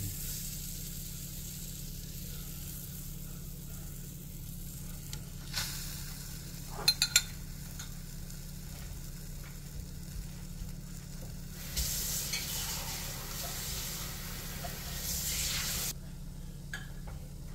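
Chaffle batter of egg and mozzarella sizzling in a Dash mini waffle maker, a steady hiss that swells from about twelve seconds in and drops back shortly before the end. A few sharp clicks come about five to seven seconds in, as the spoon is set aside and the lid is closed.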